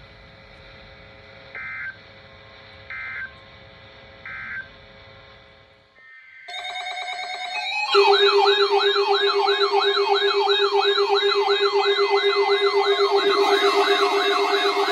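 NOAA Weather Radio broadcast sending three short data-tone bursts, the end-of-message code that closes the test. About six seconds in, weather alert receivers start sounding their alarms together: a loud siren-like warble, rising and falling about three times a second, over a steady lower tone, with another alarm tone joining near the end.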